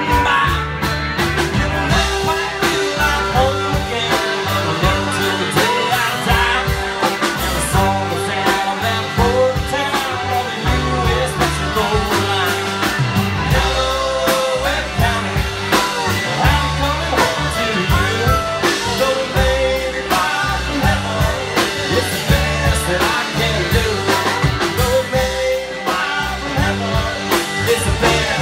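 Live band playing: fiddle, electric guitar, upright bass and drum kit, with a steady beat throughout.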